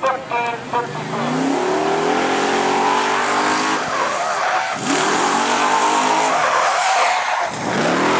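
Vintage pickup race truck's engine accelerating flat out, its pitch climbing, dropping at each of two gear shifts and climbing again, with tire squeal and wind noise. The sound cuts off suddenly at the end.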